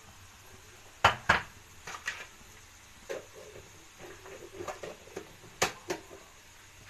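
Metal kitchen utensils knocking and clinking against a cooking pot: two sharp knocks about a second in, a few lighter taps, then two more knocks near the end.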